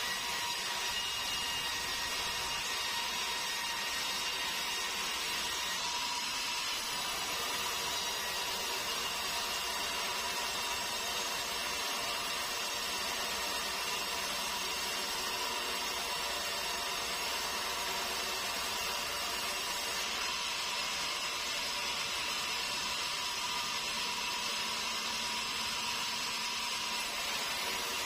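Sawmill band saw running steadily, an even machine noise with a few held tones that does not change in level.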